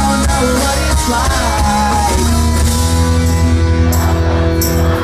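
Pop-punk band playing live and loud through the festival PA, heard from within the crowd. Guitars, bass and drums play under a sung vocal line, then settle into a sustained chord over the bass.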